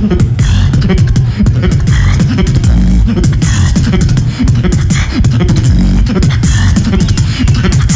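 Very fast human beatboxing into a handheld microphone, amplified through a PA: a dense rapid stream of vocal-percussion clicks and snares over deep bass sounds made with the mouth.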